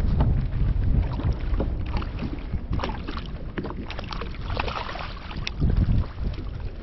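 Wind buffeting the microphone on a fishing kayak with small splashes and knocks of water against the hull. The low rumble eases after the first couple of seconds.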